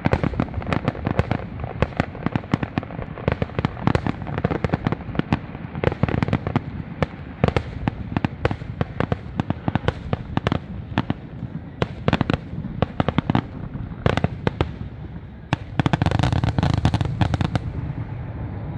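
Fireworks barrage: aerial shells bursting in rapid succession, many sharp bangs and crackles a second, thickening into a dense rolling rumble of bursts near the end.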